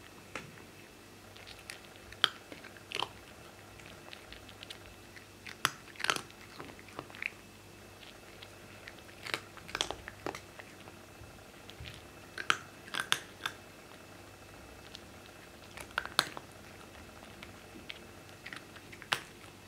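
A cat crunching dry kibble: crisp crunches in irregular clusters, with pauses of a second or more between bites.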